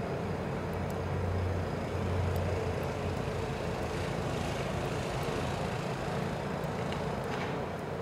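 Steady outdoor background rumble and hiss, with a low hum that is strongest in the first few seconds.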